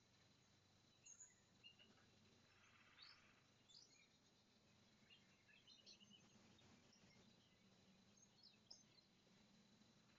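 Faint, distant birdsong: scattered short high chirps, with a buzzy trill lasting under a second about three seconds in.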